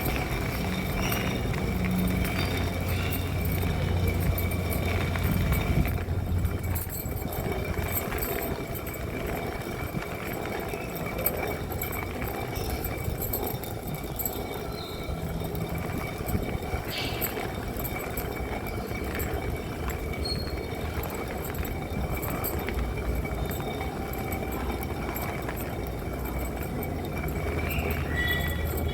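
Stone hand mill (tiragali) being turned to grind masala: a continuous rough, low grinding rumble of stone rubbing on stone.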